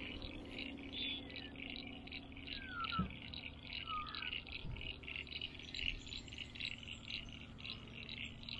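A rhythmic chirping chorus, about four high chirps a second without a break, over a low steady hum. Two short bird-like chirps come a little before three and at about four seconds in, with a soft knock at about three seconds.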